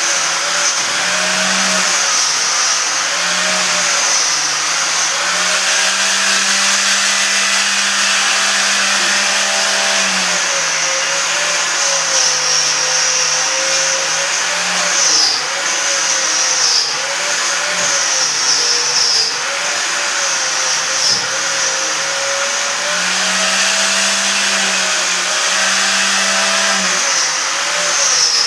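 Electric power tool motor running continuously and loudly, its pitch repeatedly dipping and recovering as it is loaded.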